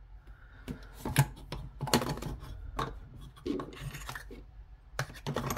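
Silver-tone metal link bracelet being handled: its disc links and toggle clasp click and rattle against each other and the tabletop in a string of irregular, sharp clinks.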